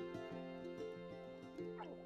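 Quiet background music of held notes that change at a gentle, regular pace.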